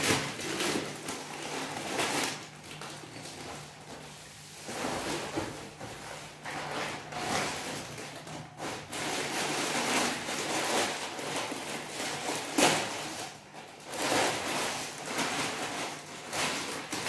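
Plastic grocery packets rustling and crinkling as they are handled, and dry grains poured from a packet into a steel tin with a pattering hiss. A sharp knock about two-thirds of the way through.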